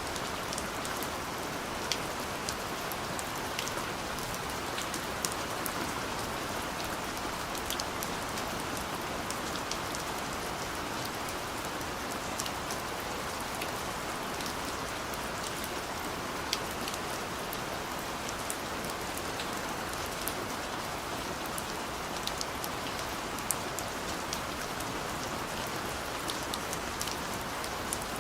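Steady rain falling, an even hiss with many scattered individual drop ticks.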